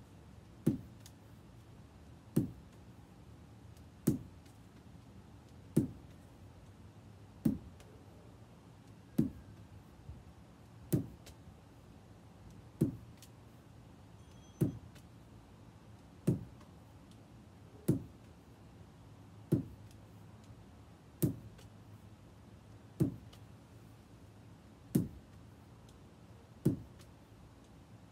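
Lacrosse ball thuds, one about every second and three-quarters in an even rhythm, as the ball is thrown and caught in repeated drill reps.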